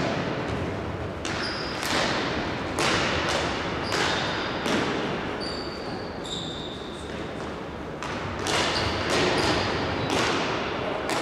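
Indoor hockey in play: sticks striking the ball and the ball knocking against the side boards. About a dozen irregular sharp knocks, each ringing on in the hall, with a quieter stretch in the middle.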